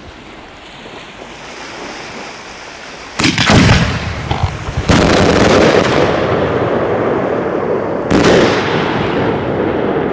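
Italian cylinder firework shell bursting overhead. A sharp bang comes about three seconds in, a louder report about five seconds in leaves a long rolling rumble, and another bang follows about eight seconds in.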